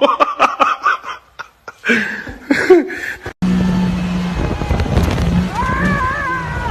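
People talking and laughing, then an abrupt switch about three seconds in to an off-road vehicle's engine running loudly and steadily, with a wavering whine near the end.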